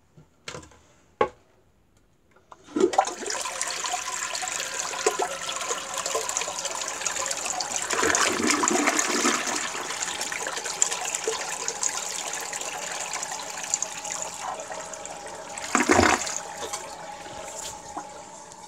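A toilet flushing. After a few clicks, the flush starts suddenly about three seconds in with a rush of water swirling down the bowl, with a brief louder surge near the end as the bowl empties. Then the bowl and tank refill with a quieter steady hiss carrying a faint tone.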